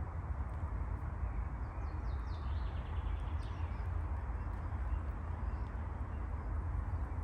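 Steady low rumble of outdoor background noise, with a songbird giving a short series of quick falling chirps about two to three seconds in.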